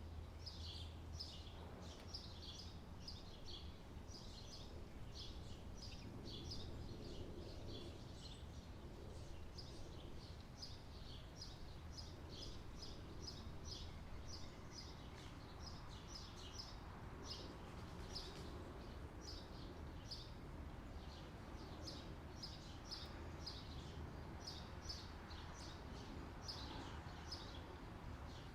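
Outdoor summer ambience: continuous rapid high chirping over a faint, steady low hum.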